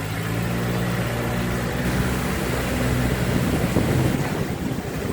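A motor vehicle's engine running steadily with a low hum, under a haze of road and wind noise.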